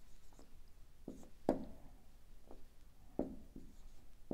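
Whiteboard marker writing on a whiteboard: a handful of faint, short strokes and taps.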